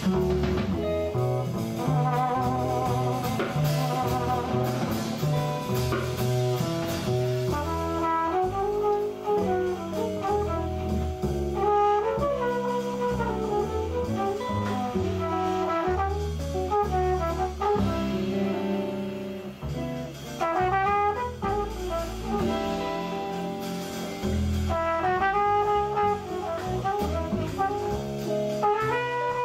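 Live jazz combo: a trumpet plays a solo line with bends and runs over upright bass, drum kit and guitar comping.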